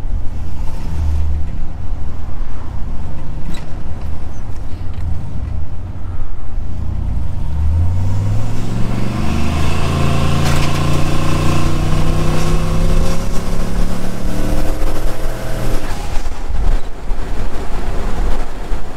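Turbocharged LS V8 of a single-turbo Chevrolet Silverado running low and steady, then pulled hard about eight seconds in. The engine pitch climbs for several seconds before the throttle is lifted around sixteen seconds.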